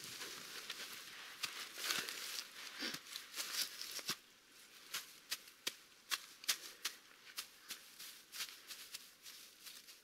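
Dry grass bedding rustling and crackling as a person crawls onto it and lies down: a dense rustle over the first few seconds, then a string of separate sharp crackles.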